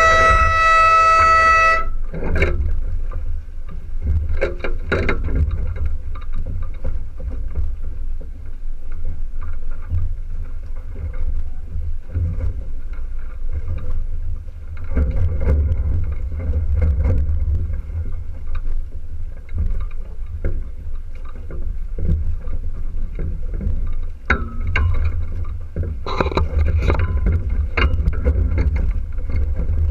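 A horn sounds once, steady for about two seconds right at the start, a race-start signal. After it, a steady low rumble of wind and water as the small sailboat moves, with a few short knocks from the boat's fittings and rigging.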